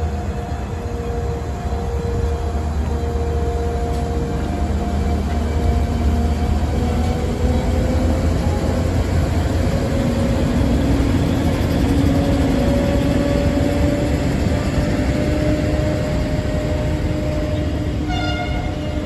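Diesel-hauled freight train of container wagons rolling past, a steady rumble of wheels on rail that is deepest in the first few seconds as the last locomotive goes by. Long whining tones drift slowly in pitch over the rumble, and a short, higher, horn-like tone sounds near the end.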